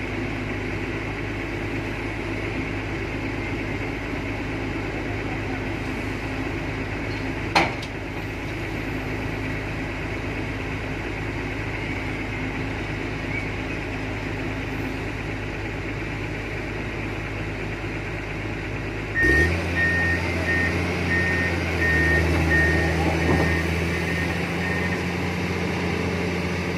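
Heavy-equipment diesel engine running steadily, with a single sharp knock about seven and a half seconds in. Near two-thirds of the way through a louder, deeper engine note comes in and a warning alarm beeps about one and a half times a second for some six seconds.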